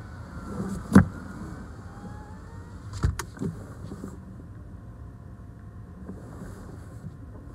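Car cabin sound as the car creeps forward: a steady low engine and rolling rumble, with a sharp knock about a second in and another about three seconds in.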